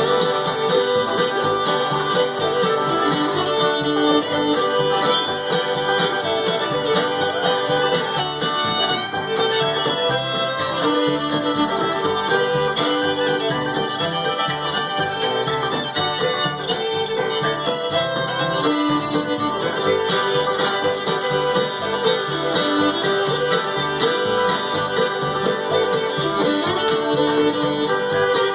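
String band playing an old-time fiddle tune live in an instrumental break between sung verses: the fiddle carries the melody over banjo and guitar.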